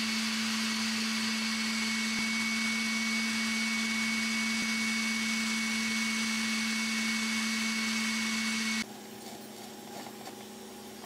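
KitchenAid stand mixer running steadily at speed, its beater whipping buttercream in the steel bowl, with an even motor whine. About nine seconds in it cuts off abruptly to a much quieter background.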